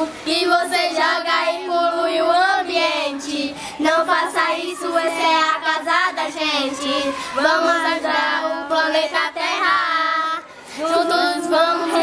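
Children singing a funk song they made up, unaccompanied, in phrases broken by short pauses every three to four seconds.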